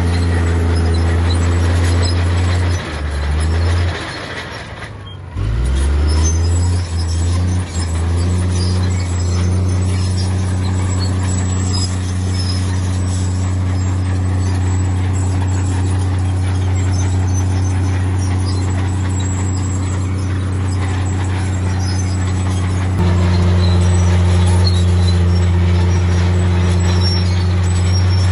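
Heavy diesel engine of earthmoving machinery running with a steady deep drone. A few seconds in, the revs sag briefly and then pick back up, and near the end the engine gets louder.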